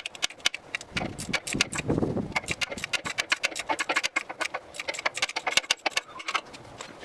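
A quick, irregular run of metallic clicks and rattles from a ratchet socket wrench working the gearbox drain plug loose, with a short lower scraping sound about a second in.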